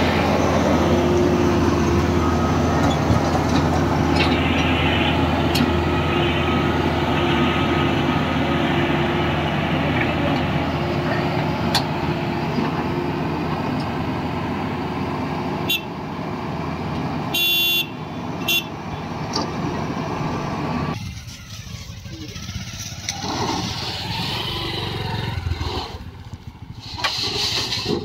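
Fieldking tracked combine harvester's diesel engine running steadily under load as it crawls up the ramps onto a trailer, with a vehicle horn sounding briefly about two-thirds of the way through. After about 21 seconds the engine noise drops sharply, leaving a quieter rumble.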